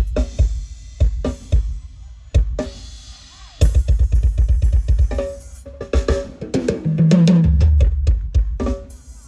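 Live drum kit played through a PA, with kick drum, snare and cymbal strikes in uneven runs broken by short gaps. A deep held low note sounds about seven seconds in.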